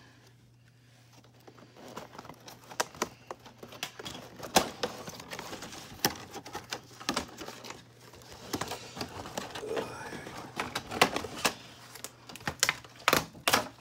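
Clear plastic doll-box packaging and cardboard being handled and pulled apart to free a doll: irregular crinkles, clicks and snaps, starting about two seconds in.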